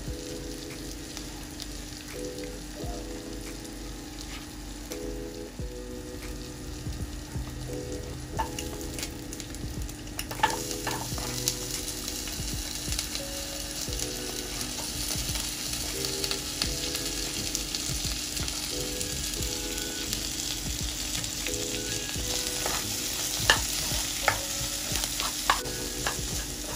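Food sizzling in a nonstick wok while a plastic spatula stirs and scrapes it, with a few sharp taps of the utensil against the pan. The sizzle grows louder about ten seconds in.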